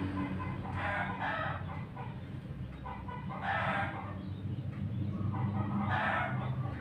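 Birds calling in three short bursts, about a second in, midway and near the end, over a steady low hum.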